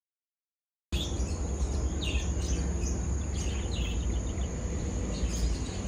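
Outdoor ambience: birds chirping in short falling calls over a steady high whine and a strong low rumble, cutting in suddenly about a second in.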